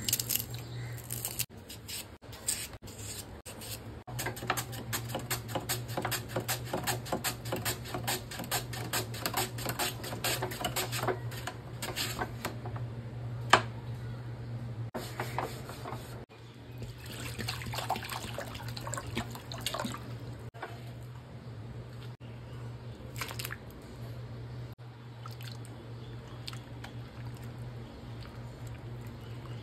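Crisp fried potato chips snapping and crunching as they are broken apart, then a stainless steel mandoline slicer cutting raw potato in quick strokes, several a second. Near the end, hands swish and splash potato slices in a bowl of water, over a steady low hum.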